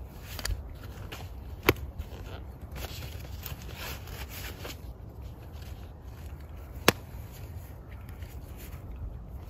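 Light rustling and crackling in dry leaf litter, with two sharp snaps about five seconds apart that are the loudest sounds.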